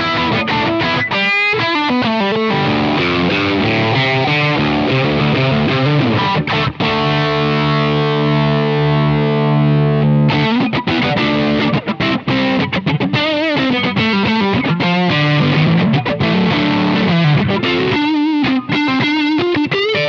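Telecaster electric guitar played through a DSM Humboldt Simplifier MK2 preamp set for heavy distortion with the presence turned back. Riffs with bent and wavering notes, and a chord left ringing for a few seconds about seven seconds in.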